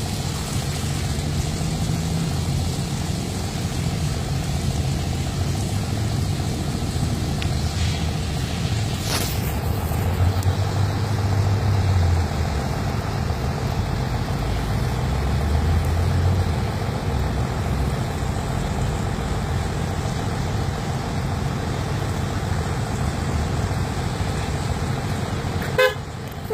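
Car engine running with a steady low rumble, and a short car horn honk near the end.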